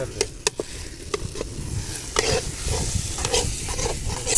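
A metal spoon stirring and scraping halwa frying in an aluminium pan, with the food sizzling. Irregular clicks and scrapes of the spoon against the pan.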